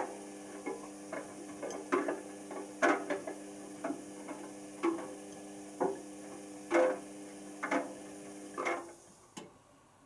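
Zanussi ZWC1300 compact washing machine near the end of its cycle: a steady mechanical hum with irregular sharp clicks about once a second. The hum stops about nine seconds in, and one more click follows.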